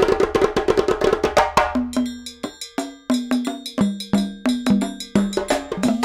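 Background music led by fast percussion, a quick run of sharp wooden-sounding strikes, with pitched notes coming in about two seconds in.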